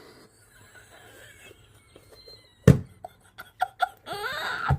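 Cast epoxy resin puzzle-box pieces being handled: one sharp knock about midway, then a few light clicks. A short rising vocal sound near the end.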